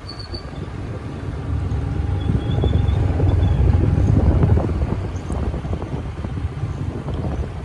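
Motorcycle engines running on the move, with wind rushing over the microphone. The engine rumble grows louder over the first few seconds, then eases off a little.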